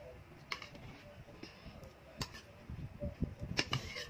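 Metal spoons clinking and scraping in ceramic bowls of porridge, with a few sharp taps about half a second, two seconds and three and a half seconds in, and soft eating sounds between.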